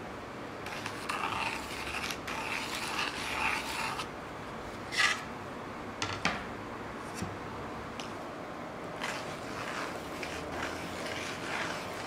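Marking tools scratching and scraping on oak boards as circles are laid out, in two stretches. Between them come a few sharp clicks or knocks.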